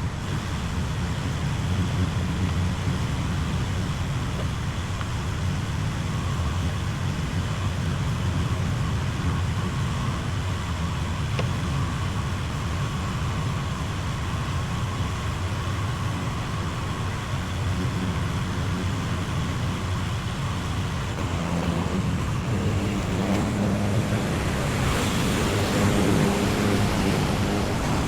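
Skid steer loader engine running steadily, then revving higher about three-quarters of the way through.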